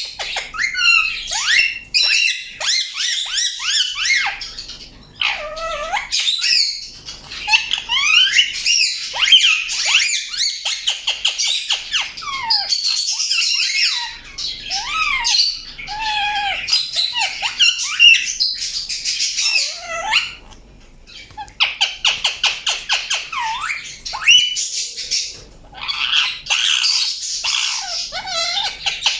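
Indian ringneck parakeet chirping and squawking in quick, shrill runs of calls, with short pauses twice.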